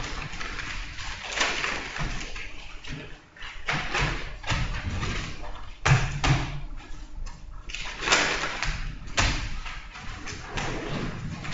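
Papers and objects being handled on a table: rustling with a series of knocks and thuds, the loudest about six seconds in.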